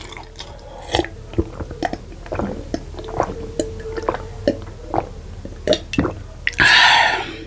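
A person drinking water from a glass mug: a run of gulps and wet swallowing clicks in the mouth and throat, then a loud breathy exhale near the end after the drink.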